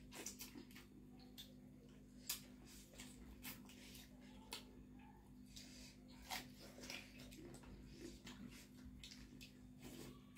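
Quiet eating sounds: chewing and lip smacks, with scattered clicks of fingers and food against steel plates, the sharpest a little over two seconds in, over a faint steady hum.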